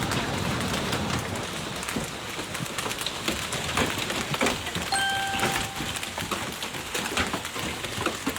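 Steady noise of heavy rain or rushing water with scattered crackles. About halfway through, a single steady beep or horn tone sounds for about a second.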